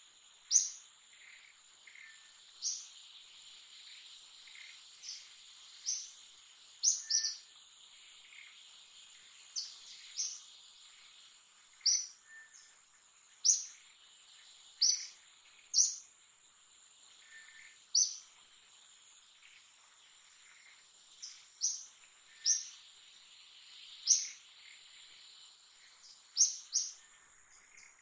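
Birds giving short, sharp high chirps every second or two, some in quick pairs, over a steady high-pitched insect drone.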